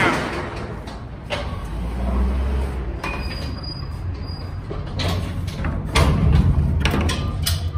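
A hand pallet jack being moved across the metal floor of an empty box truck's cargo box, rattling and clanking over a low rumble. A run of sharp knocks comes about five seconds in, echoing in the hollow box.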